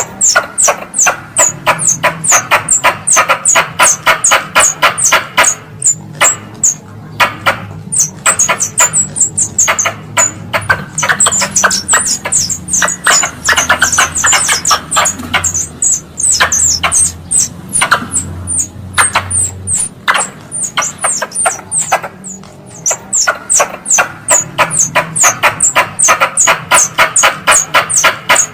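Wild squirrel calls used as a lure sound: a long run of rapid, sharp, high-pitched chattering chirps, several a second, with short lulls about six and twenty-two seconds in.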